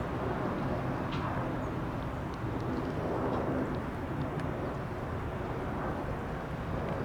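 Boeing 737-400 airliner's CFM56 jet engines, heard as a steady rumble. A few short faint bird chirps come through above it.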